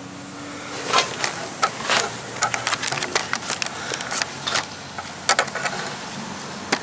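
Irregular clicks and scrapes, several a second for a few seconds, then one more near the end: handling noise from the camera being moved around under the axle.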